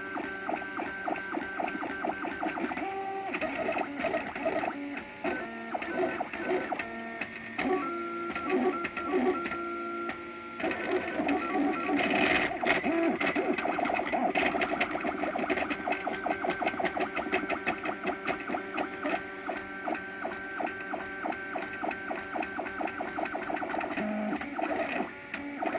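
MakerBot Thing-O-Matic FDM 3D printer printing, its stepper motors singing in steady tones that jump in pitch from one move to the next as the print head travels.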